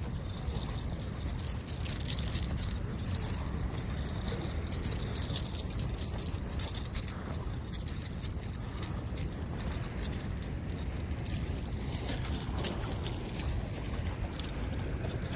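Irregular clicking and rattling of a lipless rattle-trap crankbait and its treble hooks as a freshly caught white bass flops about while being unhooked, over a steady low rumble.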